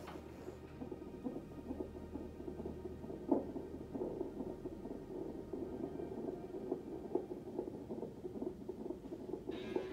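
Fetal heart monitor's Doppler ultrasound playing an unborn baby's heartbeat: a fast, galloping pulse that sounds like horse races. A light knock about three seconds in.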